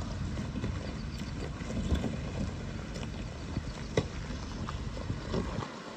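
Mahindra Thar driving off-road: a steady low rumble with wind buffeting the microphone, and scattered knocks and rattles, the sharpest about four seconds in.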